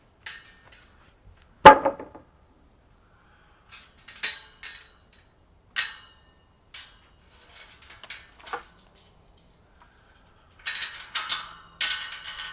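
Metal hardware clinking and jangling in scattered sharp strikes, with one louder knock about a second and a half in and a quick run of jangling near the end.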